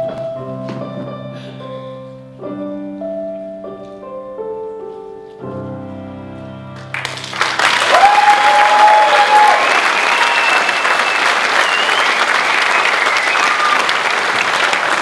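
Last sustained piano chords of a slow song ring out, then about halfway through an audience breaks suddenly into loud, steady applause.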